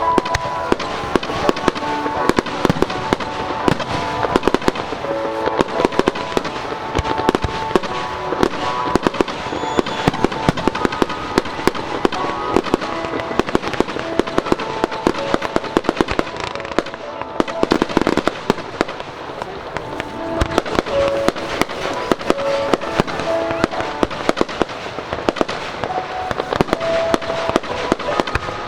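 Fireworks display: a dense run of sharp bangs and crackling bursts, several a second, with music playing alongside.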